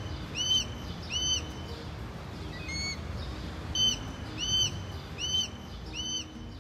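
A bird calling from a tree: a series of short, clear, arching notes, three about a second apart, a pause with one lower note, then four more.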